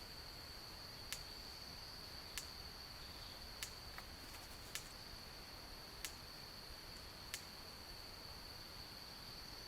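Steady high-pitched insect trill, cricket-like, with a short sharp tick repeated about every second and a quarter that stops about three-quarters of the way through.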